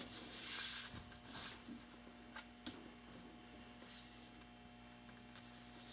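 Paper sheet rustling and hands rubbing over a plastic backrest plate, strongest in the first second and a half, then a few faint ticks.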